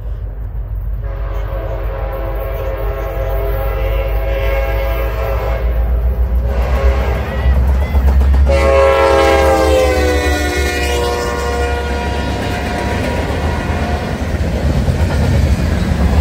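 Diesel freight locomotive's air horn sounding for a grade crossing as the train approaches: a long blast, a shorter one, then a long blast that drops in pitch as the locomotive goes by. Under it, the deep rumble of the engine and wheels grows louder as the train passes.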